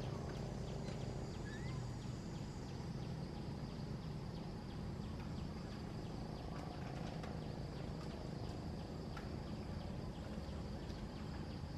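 Steady outdoor ambience: a low continuous rumble with a faint high insect drone and scattered tiny clicks, plus one brief chirp about two seconds in; no clear monkey calls.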